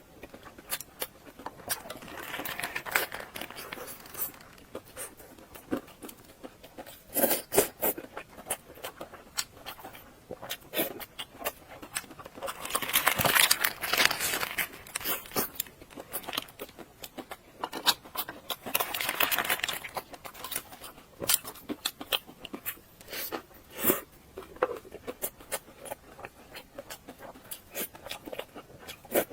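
Close-miked eating of instant noodles: chewing and wet mouth clicks, with several longer slurps of a second or two.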